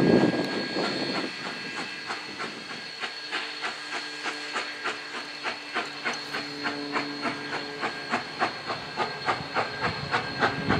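Steam locomotive New Haven 3025 approaching under steam, its exhaust chuffing in an even beat of about three a second. A burst of steam hiss right at the start.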